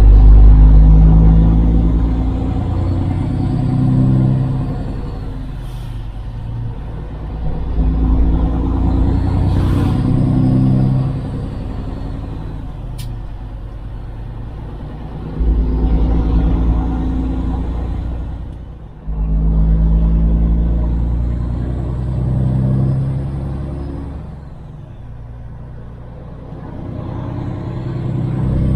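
Kenworth W900 semi truck's diesel engine pulling away under load and working up through the gears: the engine revs climb, then drop back at each upshift, four or five times.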